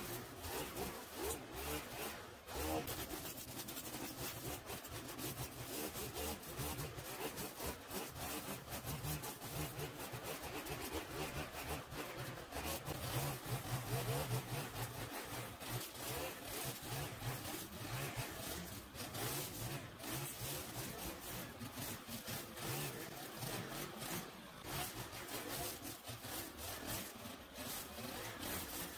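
Small petrol engine of lawn equipment running, with an irregular scratchy, rasping noise over it, as of cutting through overgrown grass and weeds. The engine hum is strongest about halfway through.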